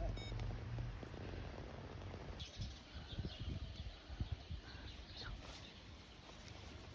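Faint bird chirps over a low, steady rumble.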